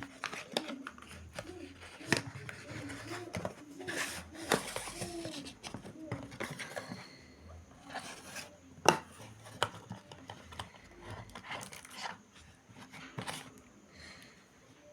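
A cardboard product box and its packaging being opened and handled by hand: irregular clicks, taps and short rustles.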